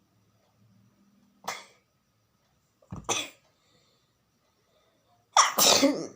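A woman sneezing, the sneezes deliberately provoked: a short burst about a second and a half in, another about three seconds in, then a loud, longer sneeze near the end.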